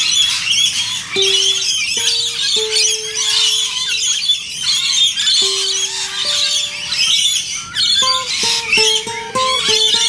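Nylon-string classical guitar played slowly, single plucked notes left to ring, turning into a quicker run of notes in the last two seconds. Parrots chatter and squawk over it throughout.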